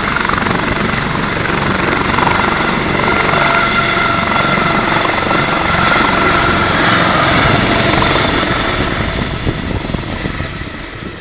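Eurocopter Dauphin air ambulance helicopter lifting off: loud rotor and twin turbine noise with a steady turbine whine. It fades over the last couple of seconds as the helicopter climbs away.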